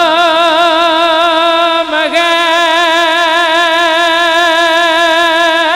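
A man singing a devotional kalam into a microphone, holding one long note with a wavering vibrato and a brief catch about two seconds in.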